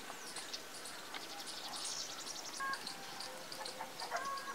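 Birds chirping: a dense run of short, high chirps, with a couple of brief, clearer notes around the middle and near the end.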